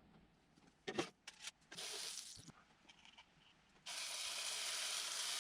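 Pancake sizzling in a hot cast iron skillet on a wood stove, a steady hiss that starts suddenly a little over halfway through, after a few light clicks of handling.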